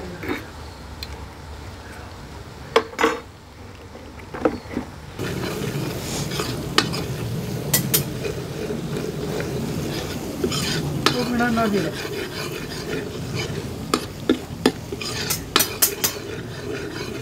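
Metal ladle stirring and scraping onion-garlic paste frying in oil in a kadhai, with sharp clinks as the ladle strikes the pan. The sizzling grows louder about five seconds in and stays steady.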